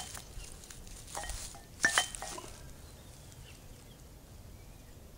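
Metal dumbbells knocking and clinking together as they are handled, a few sharp clinks about a second and two seconds in, the second ringing briefly, then near-quiet.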